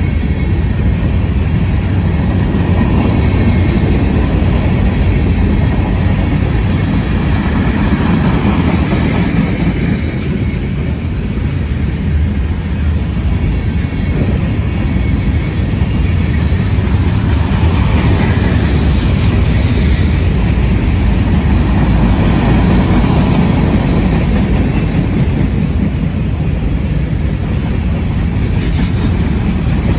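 Freight cars of a mixed freight train (covered hoppers and tank cars) rolling past close by: a loud, steady rumble of steel wheels on the rails.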